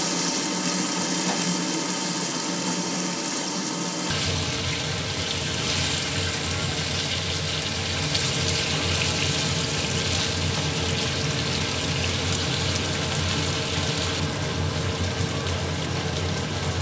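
Chicken and sliced onions sizzling and simmering in a frying pan, a steady hiss. About four seconds in the sound shifts suddenly and a low hum joins.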